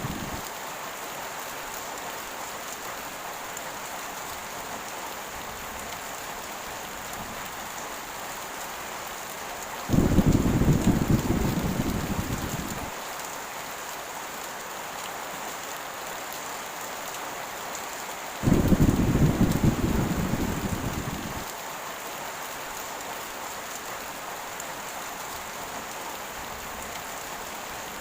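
Steady heavy rain falling, with rolling thunder. Two low rumbles start suddenly, about ten and eighteen seconds in, and each dies away over about three seconds.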